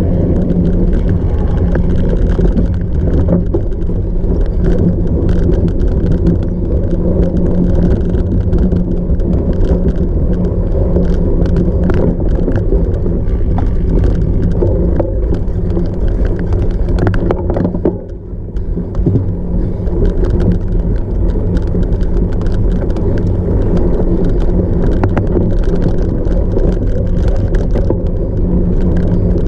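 A cyclocross bike ridden fast off-road: steady wind rush with constant rattling and clicking from the bike over rough ground, briefly quieter about 18 seconds in.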